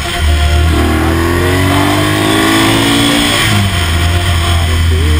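Motorcycle engine accelerating on the road, its pitch rising through a gear and dropping at a gear change about three and a half seconds in, then pulling again.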